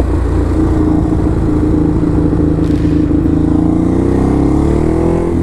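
Ducati Hypermotard's V-twin engine under way, holding a steady note, then rising in revs about four seconds in and easing off right at the end.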